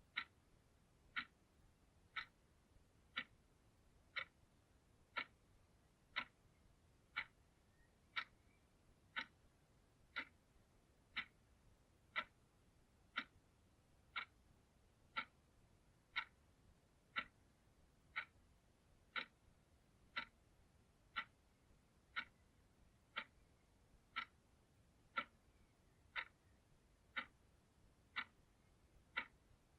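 Clock ticking steadily, one crisp tick about every second, against a near-silent background.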